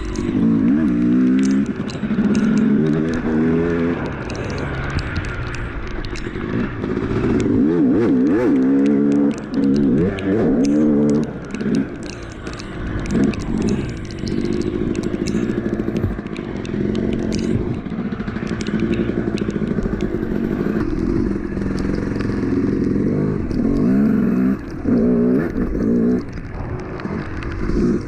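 Yamaha YZ 250 two-stroke single-cylinder dirt bike engine being ridden hard, revving up and down over and over as the throttle is worked, with the throttle snapped shut briefly several times. Light rattling and scraping comes through as the bike rides over the rough trail.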